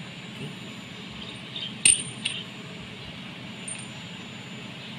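Metal engine parts clinking as a connecting rod cap and bearing shell are handled: one sharp ringing clink about two seconds in and a lighter one just after, with a few faint ticks, over a steady low hum.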